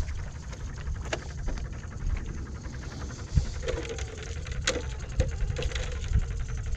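Small battery-powered aerator pump on a plastic live-shrimp bait jar buzzing with a fast, even rattle. Sharp plastic clicks and knocks come as the jar is handled, and wind rumbles on the microphone underneath.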